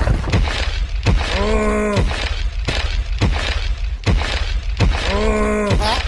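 Sharp knocks about twice a second over a steady low rumble, with two drawn-out pitched tones that rise and fall, one in the first half and one near the end.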